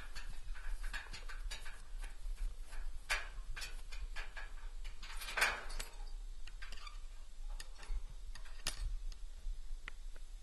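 Irregular small metallic clicks and rattles of a steel pasture gate's latch being worked by hand from horseback, with sharper clanks about three, five and a half and nearly nine seconds in.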